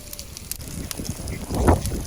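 Wood cooking fire crackling with scattered sharp pops, and a louder rustling knock about a second and a half in.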